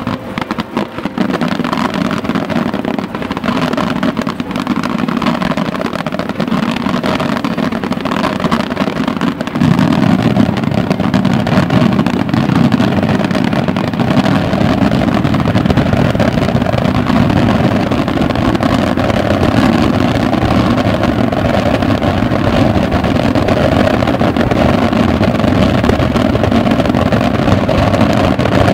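Aerial fireworks display in a dense barrage, many bursts running together into a continuous rumble. It gets louder about ten seconds in.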